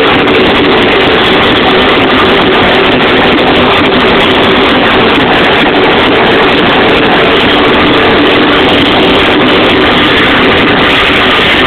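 Dance music from a club sound system, so loud that the recording overloads into a steady, distorted wall of sound.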